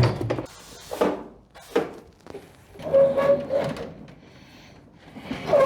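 A portable air-conditioner unit being handled and shifted: a series of knocks and scrapes, with two short squeaks, one about halfway through and one near the end.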